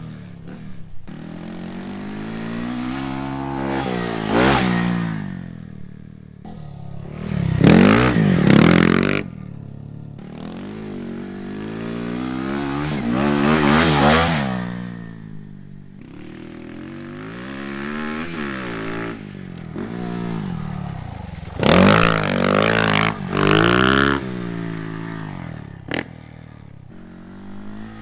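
Honda Monkey's 125 cc single-cylinder engine through a Termignoni full stainless exhaust, revving up and dropping back again and again. The loudest surges come about a third of the way in and about halfway, with two quick sharp revs near the end and lower, steadier running between them.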